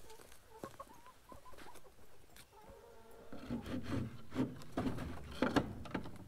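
Rustling and light wooden knocks and scrapes as the side door of a wooden chicken coop is handled, getting busier in the second half, with a few faint chicken clucks.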